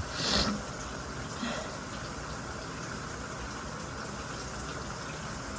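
Shower water running steadily, with a short hissing burst about half a second in and a fainter one around a second and a half in.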